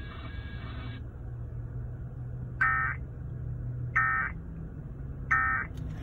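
Three short bursts of warbling data tones about 1.4 seconds apart from a car radio: the Emergency Alert System end-of-message code that closes a flash flood warning broadcast. A low steady hum runs underneath.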